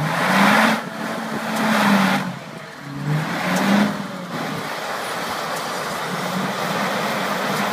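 Chevrolet Malibu's engine revving hard while its drive wheels spin in deep snow, the tyres churning and spraying snow as the stuck car is pushed free. The revs surge up and down several times, then hold steady for the last few seconds.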